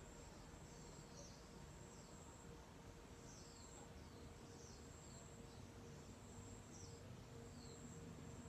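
Faint outdoor ambience: a steady, high-pitched insect trill with short falling chirps repeating about once a second over a low background hum.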